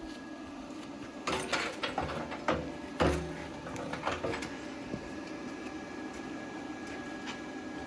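Plasma cutter cutting through steel bolts: a steady hiss with a thin, high, even whine. Several sharp metallic knocks and clanks come in the first half.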